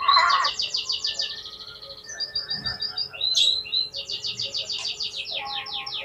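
Oriental magpie-robin (kacer) singing in rapid trills of repeated high notes: one long run at the start, a few short notes, then a second long run. This is the fast, excited song used as a 'pancingan' to provoke rival kacer into answering.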